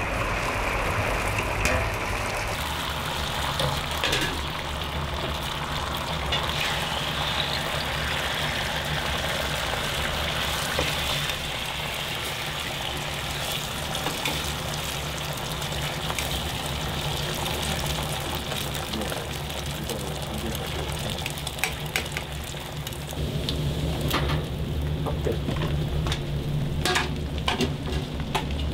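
Beaten egg batter sizzling steadily on a hot griddle pan over a gas burner, over a steady low hum. A few sharp clicks and taps come near the end.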